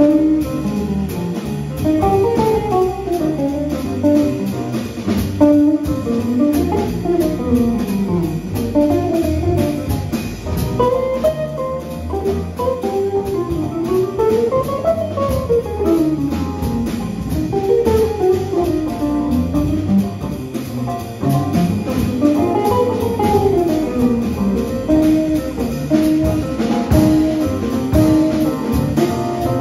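Live jazz combo: a hollow-body archtop electric guitar plays a single-note solo in quick rising and falling runs, over upright bass, drum kit and keyboard.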